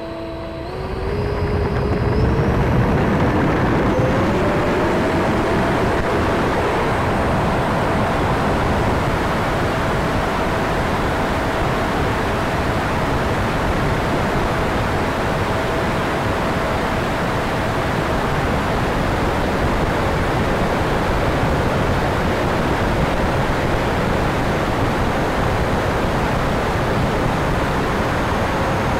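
E-flite Viper 70 mm electric ducted-fan jet spooling up with a rising whine at takeoff, then running at high power as a steady whine. Loud rushing air over the onboard camera runs underneath it.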